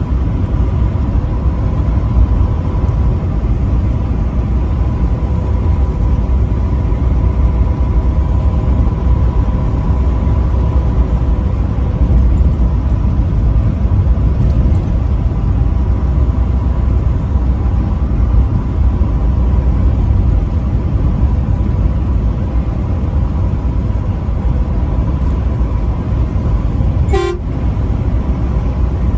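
A vehicle driving on a highway: steady road and engine rumble, with a faint steady tone above it. A brief falling sweep comes near the end.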